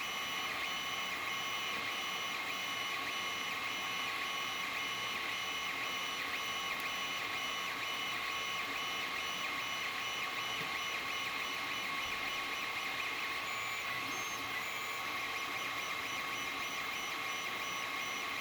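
Creality Ender-3 3D printer running a print: a steady whine from its motors and fans, with faint higher tones that come and go.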